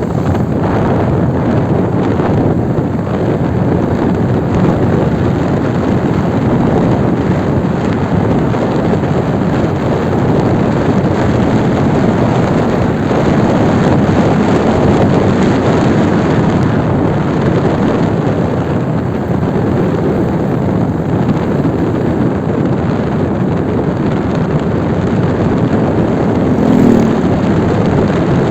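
Steady rushing wind on the microphone over the running noise of a moving vehicle on the road, with a short louder sound near the end.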